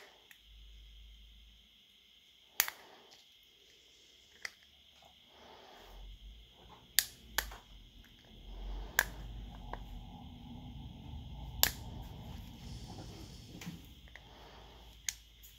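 Sharp, irregular clicks from a small hand tool working on the open plastic housing and metal shield of a Garmin Alpha 100 handheld GPS, about seven in all, with low rubbing and handling noise in between.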